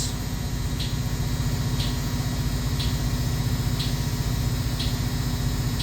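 Research ship's sonar pinging as it scans the seafloor: short, high ticks about once a second, heard over the steady low hum of the ship's machinery.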